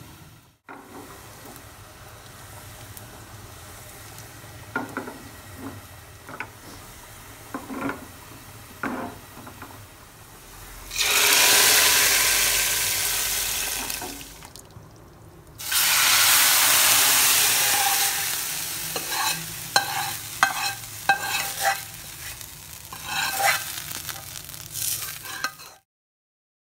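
Hot oil and fried onions sizzling as they are tipped into a pot of mutton paya gravy, in two loud stretches, the second with short clinks of a utensil against the pot. Before that there is a low hum with a few light knocks.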